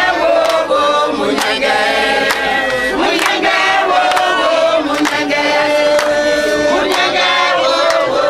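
A group of voices singing together, holding long notes, over a steady beat of sharp strikes about twice a second.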